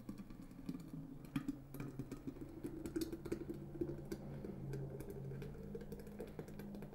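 Thick, frothy eggnog pouring from a stainless steel bowl into a glass pitcher: a steady stream of liquid filling the pitcher, dotted with many small clicks and pops.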